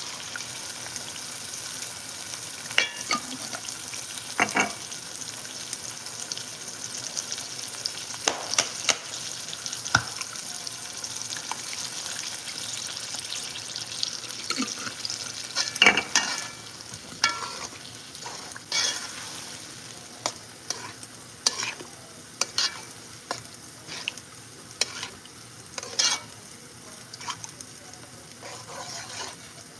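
Tomato sauce sizzling as it goes into hot browned ground beef in a metal Dutch pot, with a slotted metal spoon stirring and scraping and knocking against the pot many times. The sizzle eases a little about halfway through.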